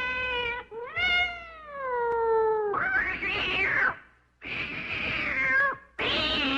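A cat meowing: a short meow, then a long drawn-out meow falling in pitch, followed by rougher, harsher yowls with brief pauses between them.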